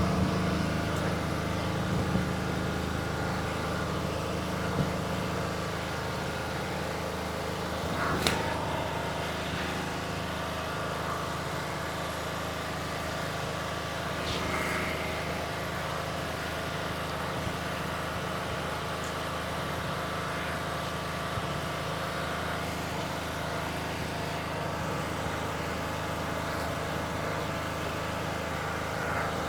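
Steady low hum of a running engine, with a few faint knocks, the clearest about eight seconds in.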